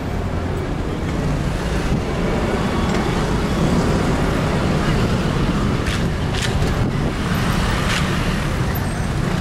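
City street traffic noise: cars and motor scooters running and passing close by, with a few short sharp sounds about six and eight seconds in.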